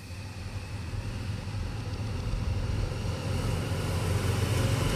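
Motorcycle engine running as it approaches, its steady hum growing louder throughout.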